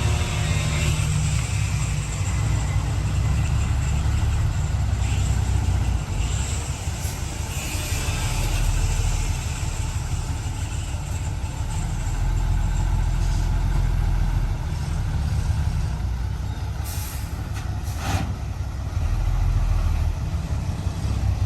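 Heavy diesel earthmoving machinery running steadily under load, its low engine drone swelling and easing. Two short hisses come near the end.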